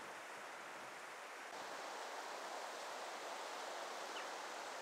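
Steady hiss of small waves washing onto a shallow sandy shore at low tide. It grows a little louder about a second and a half in.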